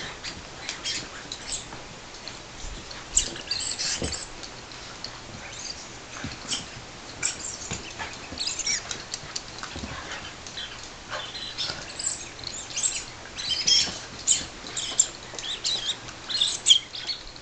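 Small dogs playing with squeaky toys: quick, irregular high-pitched squeaks with scuffling, coming thicker and louder in the second half.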